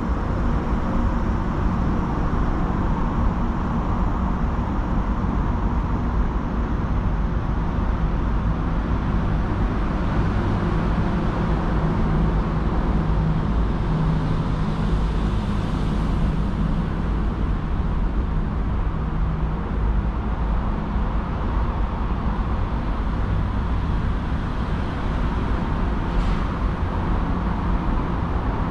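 Steady rumble of city road traffic. About halfway through, a tabby street cat meows once, looking up from its food dish.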